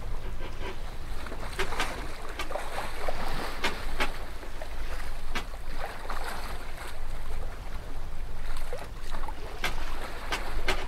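Choppy water splashing and slapping against a small boat's hull in irregular bursts, over a steady low rumble of wind on the microphone.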